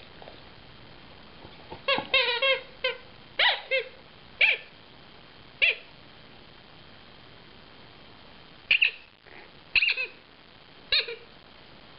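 Rubber squeak toy being chewed by a dog: short high squeaks, a quick run of them about two seconds in, then single squeaks spaced a second or so apart, with a pause in the middle.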